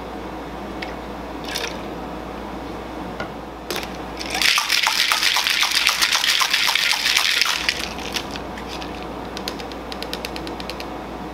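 Cocktail shaker shaken hard with ice for about three seconds, the ice rattling rapidly inside. A few single knocks come before it as the measure is poured in and the shaker is closed, and a quick run of light clicks follows near the end.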